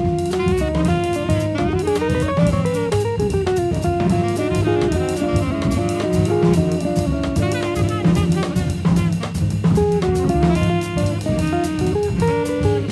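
Instrumental jazz: a guitar melody over bass and a drum kit, the line gliding up and back down about two seconds in.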